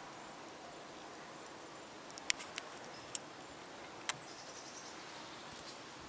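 Steady outdoor background hiss with a few sharp, short clicks between about two and four seconds in; no aircraft engine stands out.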